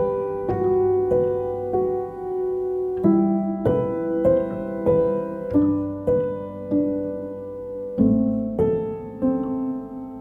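Slow piano music: single struck notes about every half second over held lower notes.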